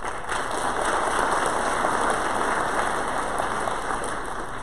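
Audience applauding, building up right at the start and dying away near the end.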